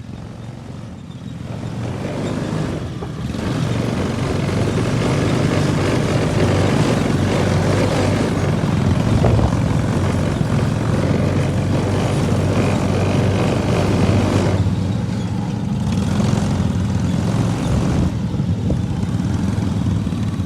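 Lawn mower engine running steadily under mowing load. It grows louder about two seconds in and eases off briefly twice near the end.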